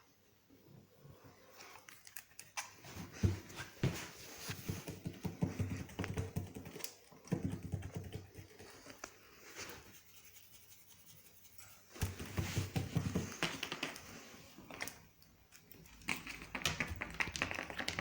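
A monster-claw scratcher raking a Staffordshire bull terrier's coat: four bursts of quick, clicking scratch strokes with short pauses between.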